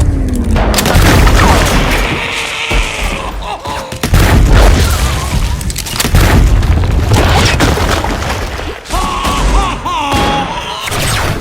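A dense run of loud booming impacts and shot-like bangs from anime-style sound effects standing in for gunfire, overlapping over a heavy low rumble. A wavering pitched cry cuts in about nine seconds in.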